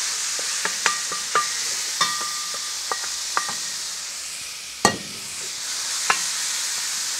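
Chicken pieces sizzling in a hot pan on a kamado grill, with a steady hiss. A wooden spatula stirs them, scraping and tapping against the pan, and there is one sharper knock about two-thirds of the way through.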